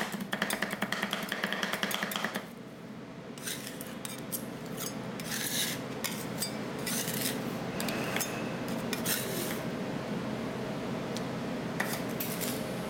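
Steel spatulas working ice cream mix on a frozen steel plate: rapid clattering chopping strokes for about two and a half seconds, then slower, spaced-out scraping strokes across the plate, over the steady hum of the cold-plate machine.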